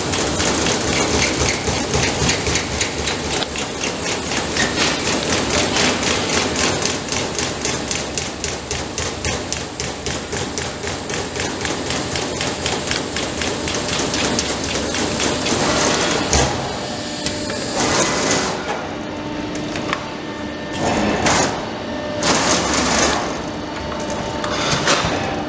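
Trumpf 200 Rotation CNC punch press striking sheet metal in a rapid, even train of punch strokes, several a second. The strokes stop about sixteen seconds in, leaving a few separate machine sounds with gaps between them.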